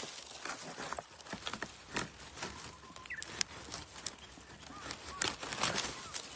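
Dry dead grass and stalks rustling and crackling underfoot and under hand, with irregular sharp snaps of brittle stems.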